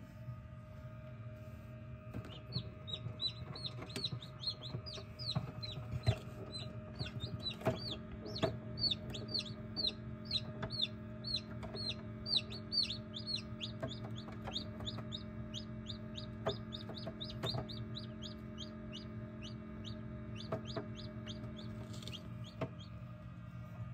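Newly hatched chicks peeping in an incubator: a long run of short, high, falling peeps, about two to three a second, starting a couple of seconds in and stopping near the end. The incubator's steady hum runs underneath.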